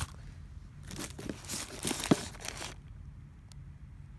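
A click, then about two seconds of packaging rustling and crinkling as a power bank's retail box is handled, with a sharp snap toward the end of it.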